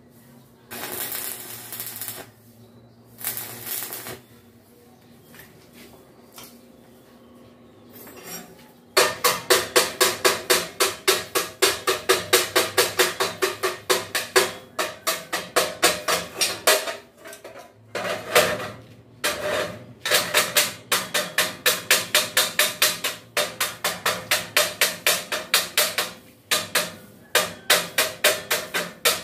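Arc-welding crackle in a few short bursts, then from about nine seconds in a rapid, steady tapping of a chipping hammer on the steel pot, about four ringing metal strikes a second with brief pauses, knocking the slag off the fresh welds.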